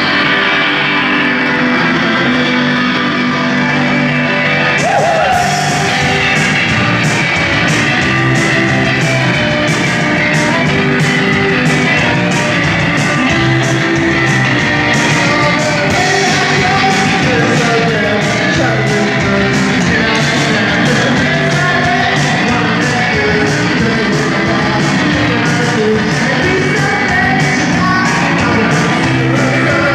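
Live rock band playing loud: electric guitar and a drum kit with singing, the drums coming in about five seconds in.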